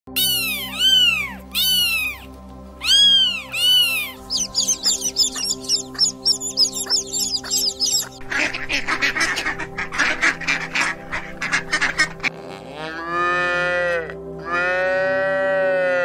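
A sequence of farm-animal calls. First kittens mew about six times, then a few seconds of rapid high peeping and chattering from a crowd of chicks, then a cow gives two long moos near the end. Faint steady background music runs underneath.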